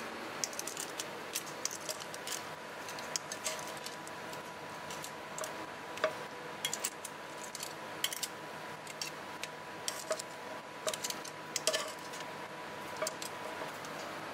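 Metal tongs clicking and scraping against a non-stick frying pan and a plate as pasta is served out: irregular sharp clicks, several a second at times, over a steady hiss.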